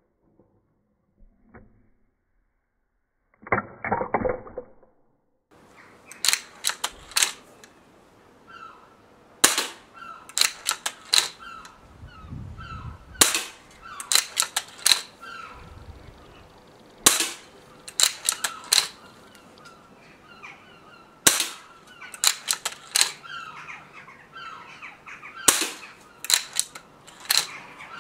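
Break-barrel spring-piston air rifle being shot over and over, a sharp report about every four seconds. Each report is followed by the clack of the barrel breaking open and snapping shut again, which cocks the gun and feeds the next ball from its magazine.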